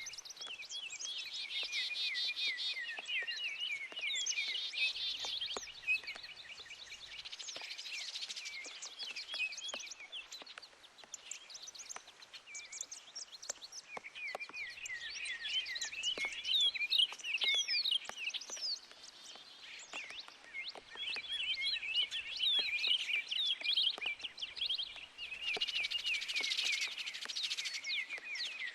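Several songbirds chirping and trilling in a busy, overlapping chorus, easing briefly twice before picking up again, over rain with scattered sharp drip ticks.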